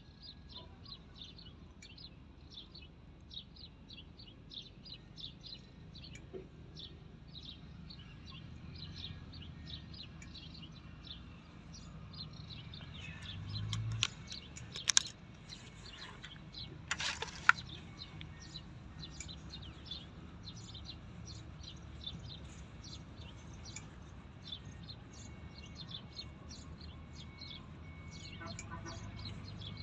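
Small birds chirping continuously, many short high chirps a second. Near the middle, a low swell is followed by two loud sharp knocks about two seconds apart.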